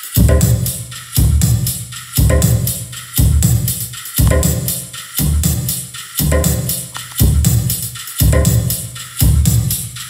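Self-made GarageBand electronic track with a drum-kit beat playing loud through a Bose S1 Pro speaker paired with a KRK 10S studio subwoofer. A heavy bass-drum hit lands about once a second under the music.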